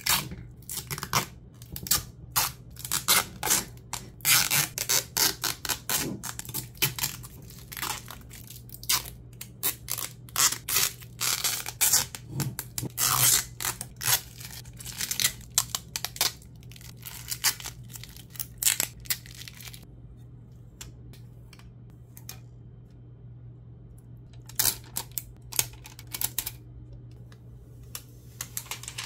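Packaging of a graphics card being torn, crinkled and handled in quick, irregular bursts. The bursts are dense for most of the stretch, pause for a few seconds, then come back briefly, over a low steady hum.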